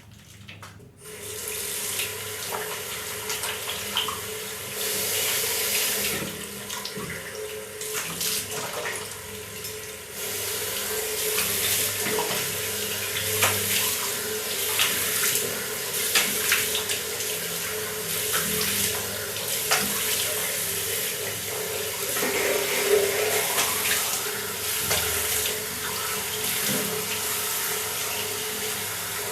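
Water tap turned on about a second in, running into a bathroom sink, with irregular splashing from hands in the stream. The flow gets louder about ten seconds in.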